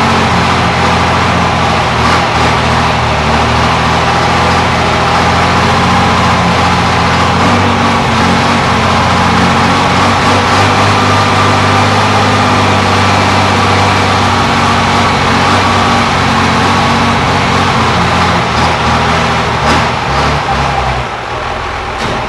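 Built 1000 hp 12-valve Cummins inline-six diesel running on its first start, idling loudly with its speed shifting slightly now and then. The low engine note drops away near the end.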